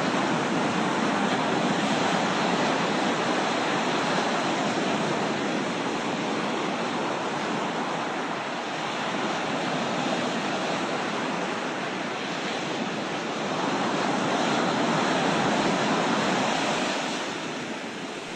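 Loud, steady rushing of floodwater, an even roar that swells and eases slightly and thins out near the end.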